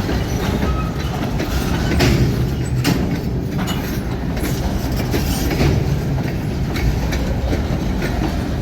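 Train rolling past with a steady low rumble and scattered clacks from wheels passing over rail joints.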